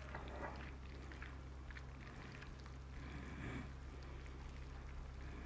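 Faint wet squishing and squelching of a bare hand mixing boiled noodles with raw egg in a bowl, in soft irregular bits.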